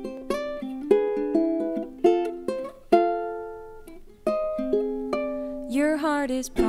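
Ukulele playing a picked song intro, single plucked notes and chords ringing and fading. A woman's singing voice comes in near the end.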